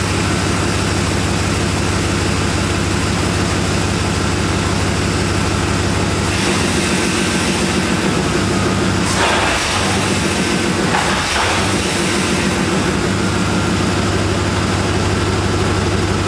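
Chevrolet 350 small-block V8 with throttle-body injection running steadily after an engine swap, with a short stretch of extra noise about nine to eleven seconds in.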